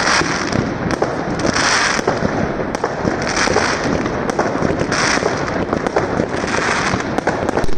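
Many fireworks going off at once: a dense, unbroken run of bangs and crackles, with a swell of hissing crackle about every second and a half.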